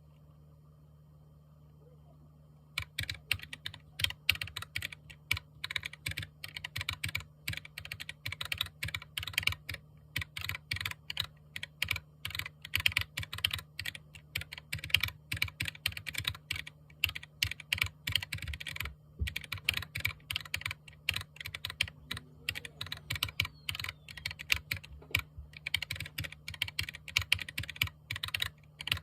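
Typing on a Keychron K4 mechanical keyboard: a fast, continuous run of key clicks that starts about three seconds in, with a brief pause around the middle. A steady low hum runs underneath.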